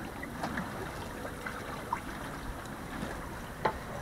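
Water rushing and trickling along the hull of a sailboat under sail with its engine off, with a couple of sharp ticks, one about two seconds in and one near the end.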